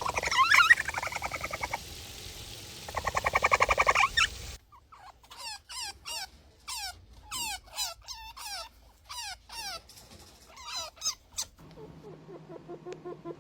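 Rodent calls from three different animals in turn: first a loud run of harsh squeaks and squeals, then after a sudden cut a quieter series of short, separate chirps, and near the end a low buzzing call that pulses quickly and evenly.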